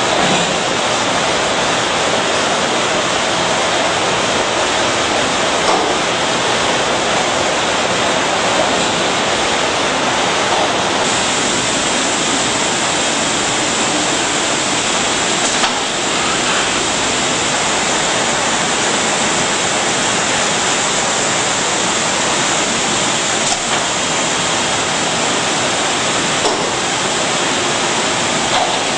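Steady, loud machine noise of a beverage can depalletizer and its conveyors running: a continuous hiss-like rush with a few faint knocks.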